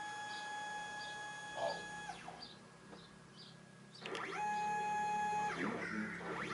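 NEMA 17 stepper motors of a homemade wooden CNC router jogging its axes on trapezoidal lead screws during its first powered test. Each move is a steady whine that glides up as it starts and down as it stops. One move ends about two seconds in, a second runs from about four seconds to five and a half, and a third starts near the end.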